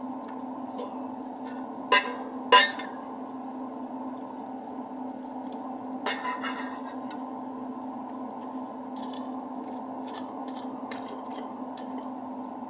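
Kitchen utensils clinking against cookware: two sharp clinks about two seconds in, another near the middle, and a few lighter taps, over a steady low hum.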